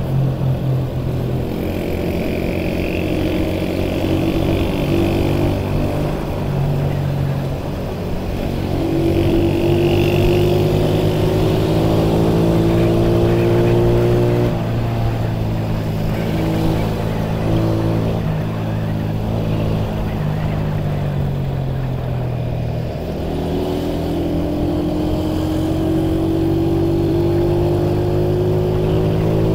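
Honda CD125 motorcycle engine running on the move, its pitch climbing as it accelerates, falling back around halfway through, then climbing again over the last several seconds.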